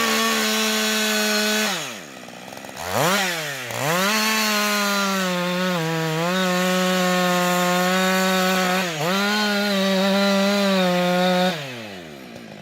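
Two-stroke chainsaw running at full throttle at a steady high pitch, with the revs falling away about two seconds in, rising again a second or so later, and falling away once more near the end.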